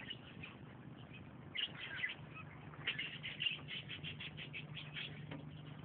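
Faint birds chirping in quick runs of short, high notes, with a steady low hum underneath.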